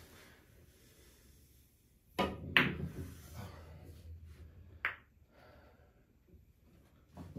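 A pool cue strikes the cue ball about two seconds in, and a moment later comes the loudest sound, the sharp clack of the cue ball hitting an object ball. The balls then rumble as they roll across the cloth, with another sharp clack about five seconds in and a smaller knock near the end.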